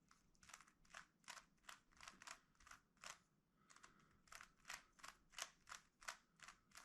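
Rubik's Cube layers being turned by hand: a quick, irregular run of faint plastic clicks, about three a second.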